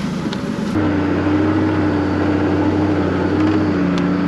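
Vehicle towing a boat trailer driving along a dirt track: a steady engine drone with road noise, getting louder about a second in.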